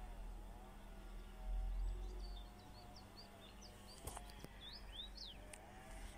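Small birds chirping, a run of short rising chirps through the middle, over a low wind rumble on the microphone that swells about a second and a half in. A faint wavering tone runs underneath.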